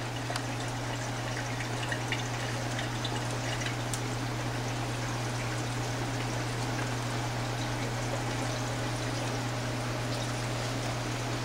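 Steady trickle of water circulating through a large home aquarium's filter, over a low steady hum.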